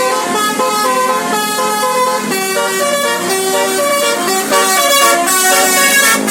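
Indonesian bus 'telolet basuri' musical horn playing a melody of quick, stepped horn notes. A hiss rises under it near the end.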